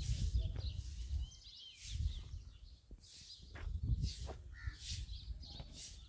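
Outdoor ambience: short bird chirps and calls over a low, uneven rumble.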